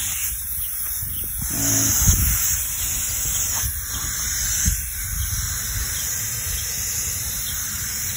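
Water spraying in a steady fine hiss that swells and eases, a light misting of freshly sown seeds to keep the soil moist.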